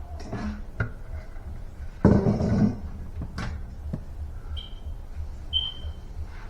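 Kitchen handling noises: a few light clicks and knocks, and a brief rustling scrape about two seconds in, as things are moved about on the counter during weighing. Two short high chirps come near the end.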